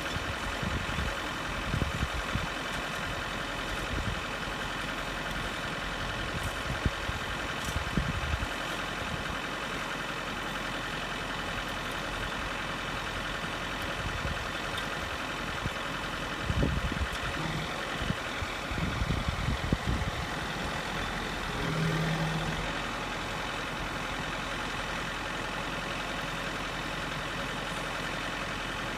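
John Deere 4066R compact tractor's diesel engine running steadily while it drives a three-point post-hole auger through the PTO, with scattered short low thumps, most of them about two-thirds of the way through.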